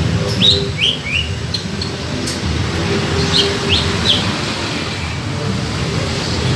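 Cucak ijo (greater green leafbird) calling: two quick bursts of three short, sharp notes, about half a second in and again about three and a half seconds in, over a steady low rumble.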